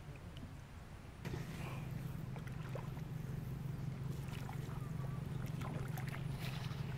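A small motor running steadily with a low, even hum that sets in about a second in.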